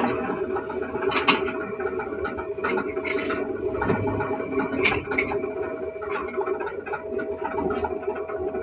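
Metal lathe running and machining a workpiece: a steady hum under irregular scraping, with a few sharp clicks, about a second in and again near five seconds.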